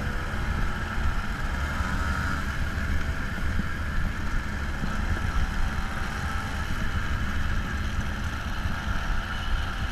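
Small 50 cc two-stroke moped engines running steadily at an even cruising pitch while riding, over a constant hiss and a strong low rumble.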